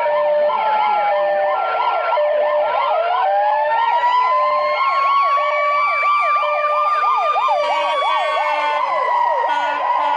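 Several electronic emergency sirens sounding at once: a fast yelp cycling about three or four times a second, a slow wail that rises about two and a half seconds in and holds, and a two-note hi-lo tone stepping back and forth.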